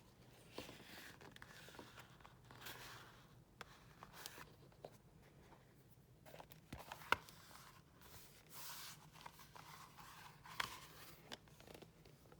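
Quiet handling sounds from items being unpacked: soft rustling with scattered light clicks, and one sharper click about seven seconds in.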